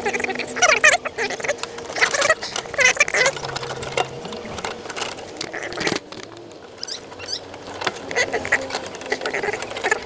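Small metal parts of a propane fridge burner assembly being handled and refitted, with clicks, taps and light scrapes as the gas-line fitting is worked by hand. Repeated short high chirps are heard, mostly in the first few seconds and again near the end.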